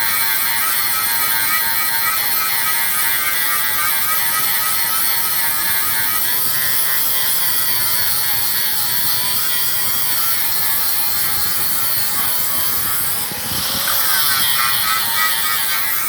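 Small electric power-tool motor running steadily with a high buzzing whine, its pitch wavering for a few seconds midway and dipping briefly about thirteen seconds in.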